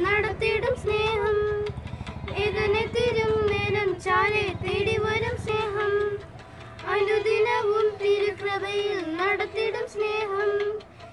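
Two children singing a song together, reading the lyrics, with a short pause about six seconds in.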